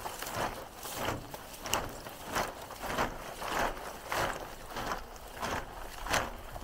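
Coil of black plastic drip-irrigation tubing being unrolled by hand on dry corn straw, its loops rubbing and dragging through the straw with a dry rustle and crunch about every half second.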